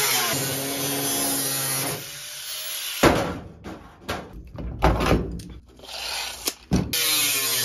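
Irregular knocks and scraping from work on the cab's rusty sheet-metal floor, starting about three seconds in and lasting some four seconds, after a steady stretch with held low tones.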